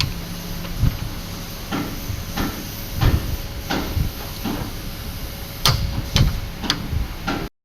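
Irregular sharp metal knocks and clicks, roughly one every half second to a second, over a steady noise bed: parts and tools being handled during work on a truck gearbox. The sound cuts off abruptly near the end.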